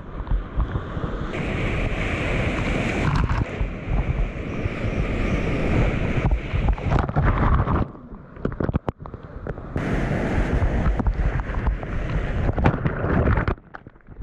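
Whitewater rushing and splashing over a kayak surfing a river wave, heard close on a small action-camera microphone. The sound dulls briefly about eight seconds in as water washes over the camera.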